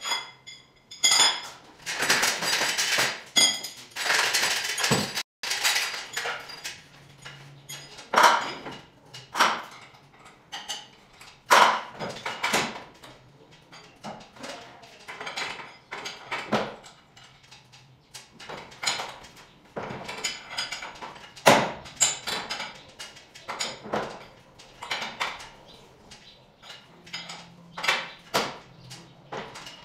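Metal tools and hardware clinking and knocking in an irregular run of sharp clicks and clanks, some of them ringing, with a denser stretch of clattering and scraping about two to five seconds in.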